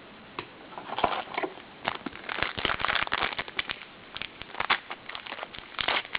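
Trading-card pack wrapper crinkling and cards being handled: irregular rustling and crackling that picks up about a second in.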